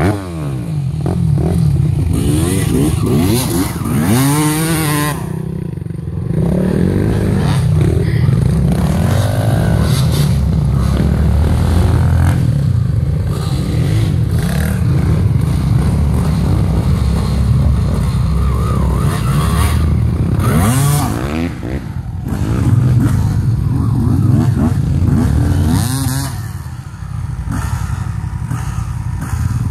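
Dirt bike engines running hard, revving up and down several times, the pitch rising and falling with the throttle.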